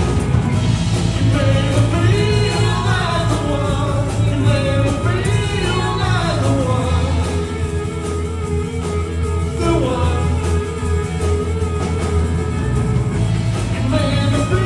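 Live rock and roll band playing, with a lead voice singing over guitar, bass and drums.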